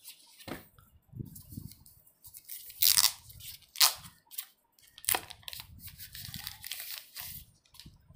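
Protective wrapping being peeled off a new smartphone and crinkled in the hands: irregular rustling with a few sharp crackles, the loudest about three and four seconds in.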